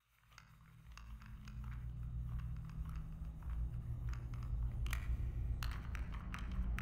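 Low steady hum that fades in and slowly grows louder, with scattered crackles and clicks over it.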